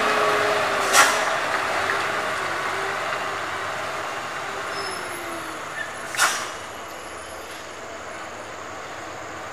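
Loaded dump truck's diesel engine pulling uphill through a hairpin bend and moving away, its hum fading over the first five or six seconds. Two short sharp bursts cut through, the louder about a second in, the other about six seconds in.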